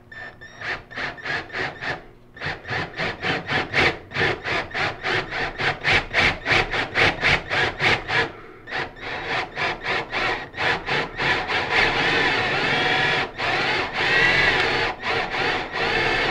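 Hand-held power drill boring into a wooden board with a 1-inch Forstner bit. For the first half the cutting comes in pulses about three times a second, then it runs more steadily with a few brief pauses.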